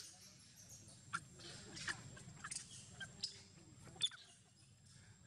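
Long-tailed macaques giving short, sharp high squeaks and chirps, roughly one a second, some dropping quickly in pitch.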